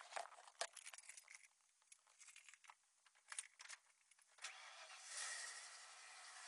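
Keys jangling with scattered clicks, then about four and a half seconds in the van's engine starts and keeps running with a steady, slowly building sound.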